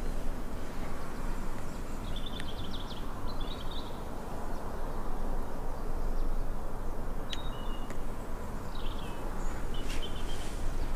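Outdoor ambience: a steady low rumble with short high bird chirps a few times, around two to three seconds in, near the middle and near the end.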